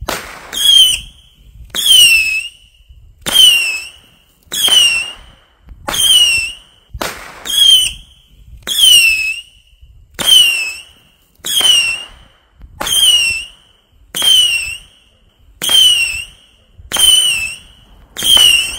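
A 25-shot firework cake firing its shots in a steady sequence, about one every second and a half. Each shot is a sharp launch with a short, high whistle that falls in pitch.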